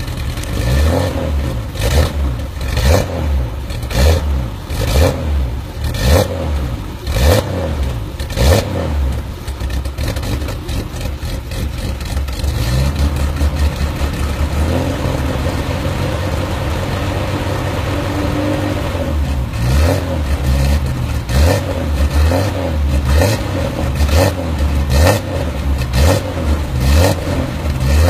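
BMW E30 Hartge H27's 2.7-litre M20 straight-six, heard at the tailpipe of its Hartge exhaust, blipped in quick short revs about once a second. It settles to a steady idle for about ten seconds in the middle, then is blipped again in another run of revs.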